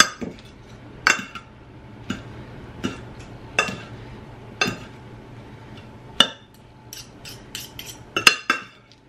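Metal forks clinking and scraping against a ceramic baking dish while tossing a salad and breaking up avocado. Sharp clinks come about once a second, with several in quick succession near the end.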